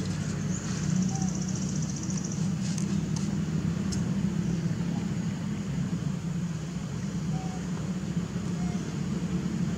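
Steady low mechanical hum, like an engine running, with a fast pulsing high trill about half a second in that lasts about two seconds, and a few faint clicks.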